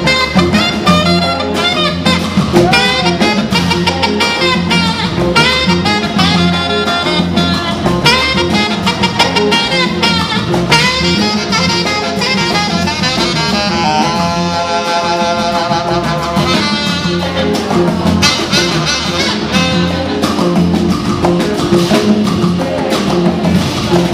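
Live band playing an instrumental passage: saxophone lead over electric guitars, bass guitar, drum kit and a hand drum.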